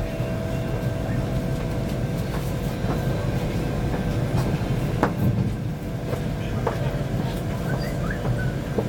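Steady low rumble inside the passenger cabin of a CRH Harmony high-speed train pulling out of a station, with a faint steady hum of tones over it and a few sharp clicks from the wheels.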